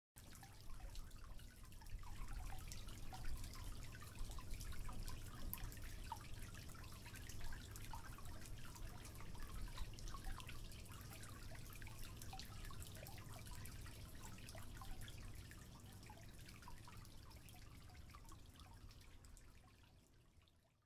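Faint spring water dripping and trickling in a tufa-stone grotto: many small irregular drips over a low steady rumble, fading out near the end.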